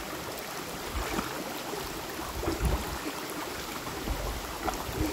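Shallow rocky river flowing steadily, with a few light splashes in the water.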